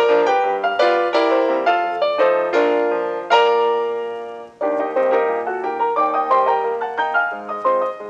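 Solo piano accompaniment playing a run of struck chords and melody notes that ring and die away. Just past the middle it fades out for a moment, then starts again with quicker, lighter notes.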